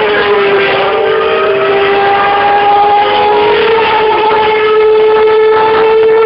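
Formula 1 cars' high-revving 2.4-litre V8 engines heard across the circuit as a loud, high whine that slowly rises in pitch as the cars pull through a gear. A second car's note glides down to join it about three seconds in.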